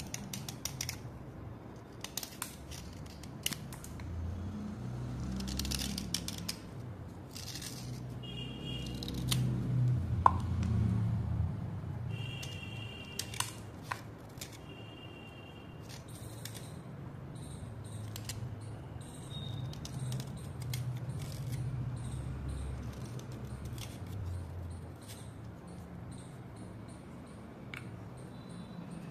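Wet white slate chips scraped against each other by hand, a slate edge scraping damp slate paste off another piece. The scrapes are gritty and irregular, with scattered light clicks of slate on slate.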